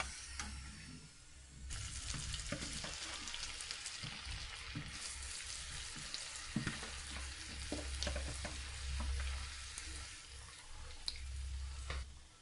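Potato fries deep-frying in hot oil in a karahi, a steady sizzle full of fine crackles that sets in suddenly about two seconds in. Occasional sharp clicks sound over it.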